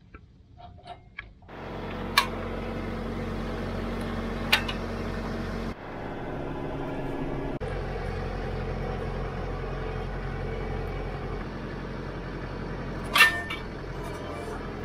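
Branson 5220C tractor's diesel engine running steadily at idle, with three short sharp knocks over it: about two seconds in, midway, and near the end.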